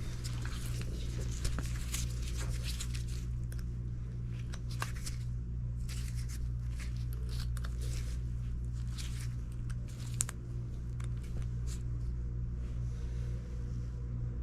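Steady low electrical hum from an air-conditioning unit, with many small clicks and scrapes of hands and tools working on it.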